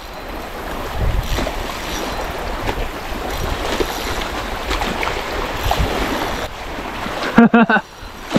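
Small waves lapping at a lake shore, with wind rumbling on the microphone. A short vocal sound comes about seven and a half seconds in.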